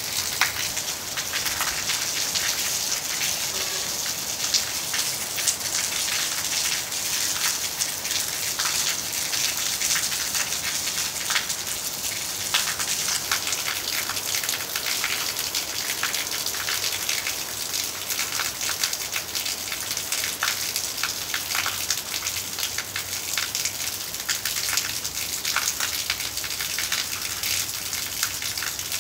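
Heavy rain falling steadily, a dense hiss full of sharp drop splashes, with rainwater pouring from a roof spout onto hard ground.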